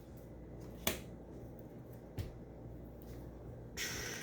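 Trading cards being handled: two sharp clicks about a second and a half apart, then a brief sliding rustle near the end.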